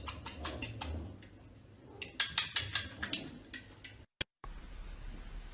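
A rapid run of sharp clicks, about five a second, in two bursts, then after a brief dropout a faint low hum.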